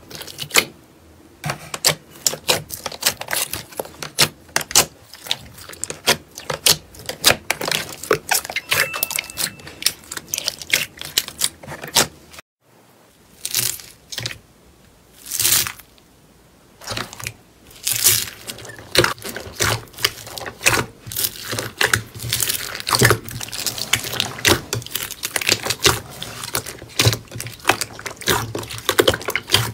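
Hands squeezing and pressing slime, giving rapid, irregular wet clicks and pops. About twelve seconds in it changes to a hand raking through a bowl of small beads, then to both hands kneading a green slime over the beads, with dense crackling and crunching.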